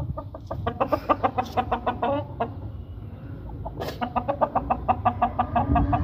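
A chicken clucking in two fast runs of short notes, about ten a second, each run lasting around two seconds.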